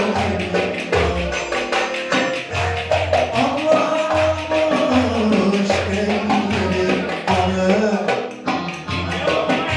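Live Ankara oyun havası dance music: a saz (bağlama) melody over a steady percussion beat.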